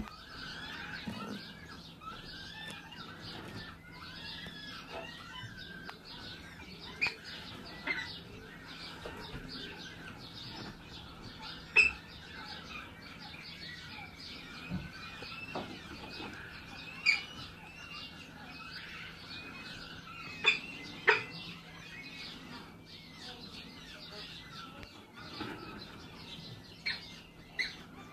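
Many small birds chirping continuously in a dense chorus of short, arched high calls, with several sharp clicks or taps standing out above it.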